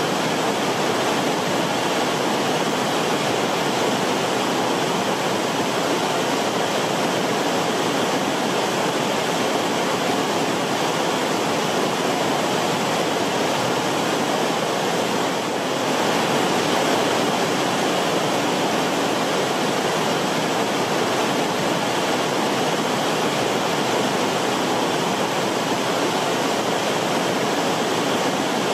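River water rushing steadily, a full, even rush of flowing water with no let-up.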